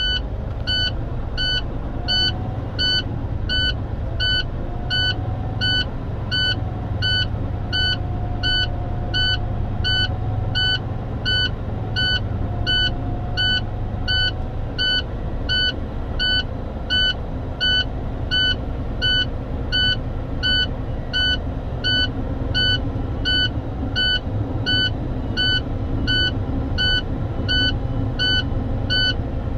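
Truck's low-air warning buzzer beeping about twice a second over the diesel engine held at raised RPM while the air compressor recharges the brake system; the buzzer sounds because brake air pressure is still below its 60 PSI warning point after being fanned down.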